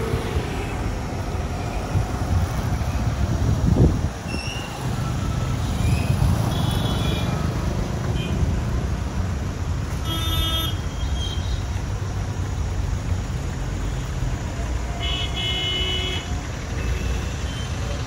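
Slow road traffic of cars and trucks passing close, with a steady engine and tyre rumble and one vehicle passing loudest about four seconds in. Horns honk several times: short toots around six seconds, a blast at ten seconds and a longer one around fifteen seconds.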